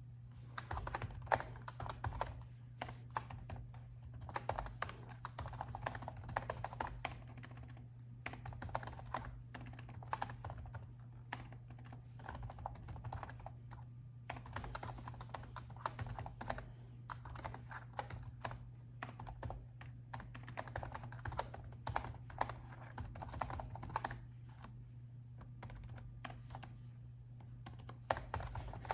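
Typing on a laptop keyboard: quick runs of keystrokes broken by short pauses, starting about half a second in.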